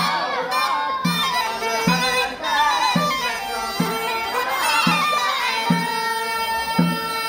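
A mizmar reed pipe plays a continuous, heavily ornamented melody with no breaks. Under it a large bass drum is struck about once a second in a steady beat.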